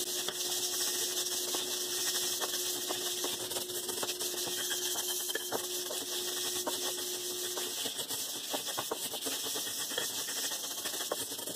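Plastic bristle brush scrubbing a stainless steel pan in quick circular strokes through a wet paste of Bar Keepers Friend and water: a steady scratchy swishing full of small ticks of bristles on metal.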